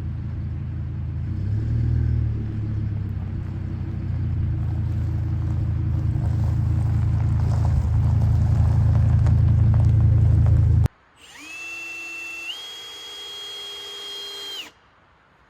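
A steady low machine rumble for about eleven seconds that cuts off suddenly, then a power tool's high motor whine for about three seconds that steps up in pitch partway through before stopping.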